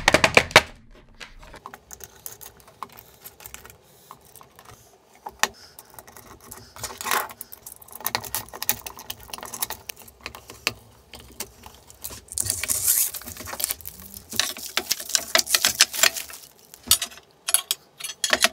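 Small metal hardware being handled and worked by hand: irregular clicks and clinks of screws, nuts and an Allen key against 3D-printed plastic plates fitted with V-wheels, with a busier stretch of rattling about two-thirds of the way through.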